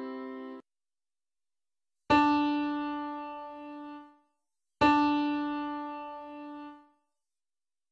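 A piano-tone keyboard strikes what looks like a single note, lets it ring and fade for about two seconds, then strikes the same note again about two and a half seconds later. This is an ear-training test item played twice for the listener to identify. A chord ringing on from before cuts off just after the start.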